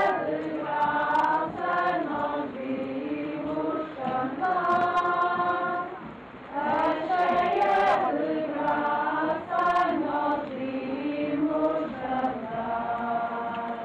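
A crowd of people singing a religious hymn together without instruments, in slow phrases of long held notes.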